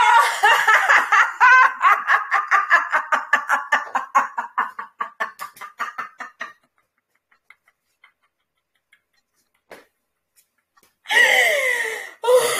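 A woman laughing out loud in a rhythmic ha-ha-ha, about four pulses a second. After about six seconds it fades into a near-silent stretch of faint breathy puffs, the laugh finished as a voiceless cough-out. Her voice returns near the end.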